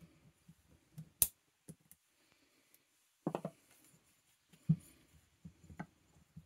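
Clicks and knocks of a Tomos moped's clutch parts being handled and fitted together by hand: a sharp click about a second in, a short cluster of knocks past the middle and a few more near the end.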